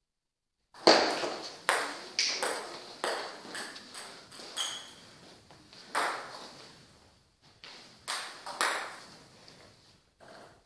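Doubles table tennis rally: the ball clicks sharply off the table and the players' rubber paddles about a dozen times, at an uneven pace, starting a little under a second in and stopping near the end as the rally finishes.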